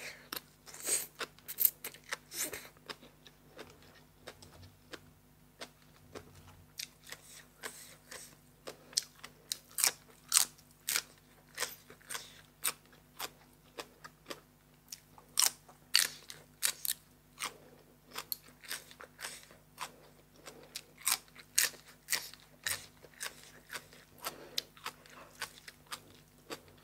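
Close-miked eating of papaya salad and raw vegetables: wet chewing broken by sharp, crisp crunches, irregular, about one or two a second.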